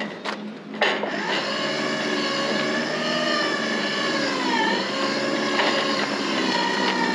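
Electric sail furler motor running steadily as the headsail comes in; its pitch sags briefly about four and a half seconds in, then recovers. Two short clicks come just before the motor starts, about a second in.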